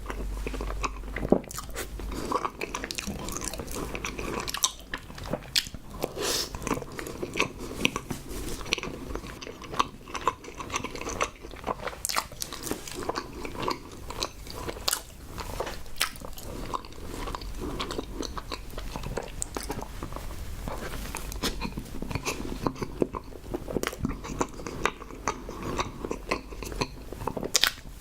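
Close-miked eating: a person chewing with many irregular wet mouth clicks and bites, ASMR-style, on tapioca pearls and cream bread.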